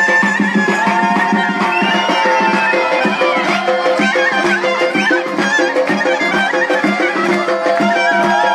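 Armenian folk dance music played live on clarinet, accordion and dhol. The clarinet carries a bending, ornamented melody over the accordion's held chords and a steady dhol beat.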